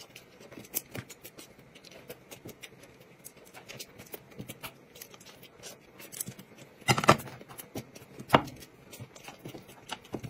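Quiet eating sounds: chopsticks tapping and clicking against a plate, with soft chewing. There are two louder knocks, about seven and eight seconds in.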